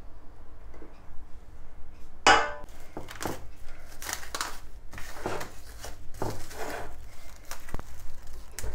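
Plastic cling film being handled: a loud rasp about two seconds in as the film is pulled, then repeated crinkling and rustling as it is stretched and pressed over a glass dish.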